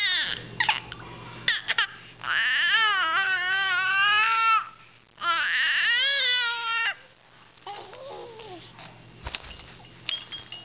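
Baby making random vocal noises: two long, drawn-out sounds of about two seconds each with a wavering pitch, then a softer, shorter one.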